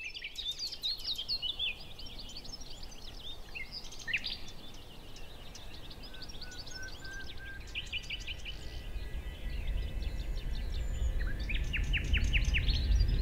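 A chorus of many small birds chirping and trilling. About two-thirds of the way through, a low rumble swells in and grows steadily louder.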